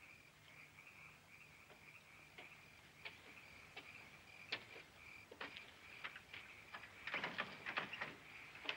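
Crickets chirping steadily in the night, with footsteps on wooden boardwalk planks coming closer: scattered steps at first, then a close run of heavier steps near the end.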